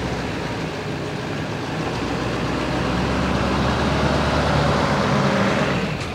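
Pickup truck with a slide-in camper driving past: steady engine running with tyre noise, growing gradually louder as it approaches, cutting off near the end.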